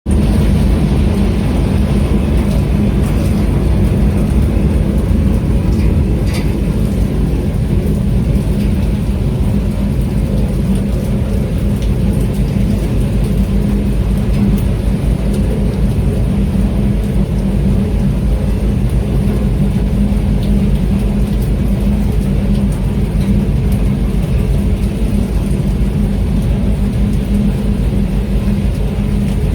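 Boat engine running with a steady low drone, mixed with steady falling rain.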